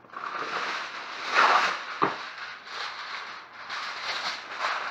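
Aluminium foil being pulled from its roll and crinkled, a continuous crackling rustle, with a sharp click about two seconds in.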